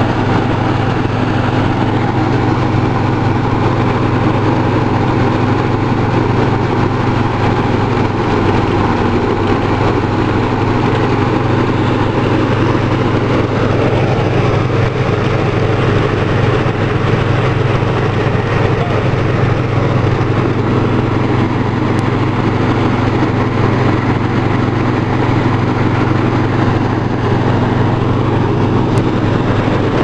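Super Grains rice thresher running steadily while threshing rice, its engine and drum making a loud, constant drone with a dense mechanical noise on top.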